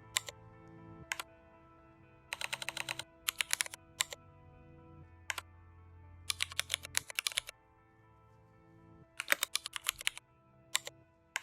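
Computer keyboard typing in short bursts of rapid keystrokes with single presses between, over soft background music.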